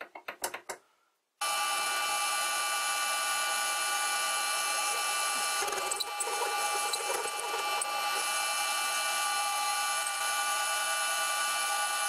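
A few light clicks, then a vintage Karger bench lathe starts abruptly about a second and a half in and runs steadily, a machine whine of several steady tones as it turns a steel bar between centres. A rougher, scratchier stretch with a few clicks comes in around the middle.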